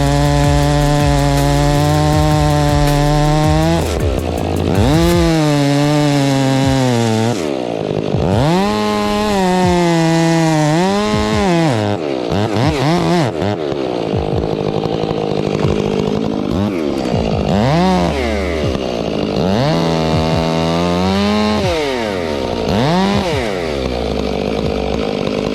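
Two-stroke chainsaw running at a steady speed, then from about four seconds in revving up and falling back again and again, every two to three seconds.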